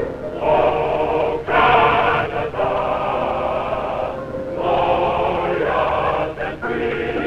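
Mixed choir singing in long held phrases, with short breaks between them.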